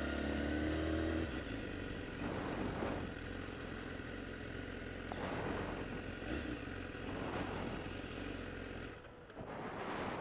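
BMW S1000RR inline-four superbike heard onboard: a steady engine note for about the first second, then a fluctuating mix of engine and rushing wind that drops quieter about nine seconds in.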